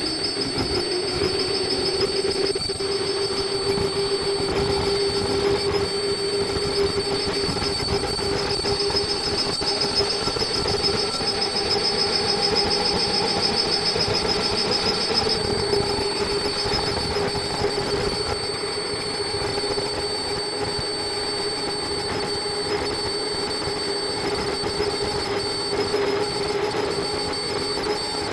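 Fully automatic face mask production machine running steadily: a continuous dense mechanical clatter with several constant whining tones, one low and some high-pitched.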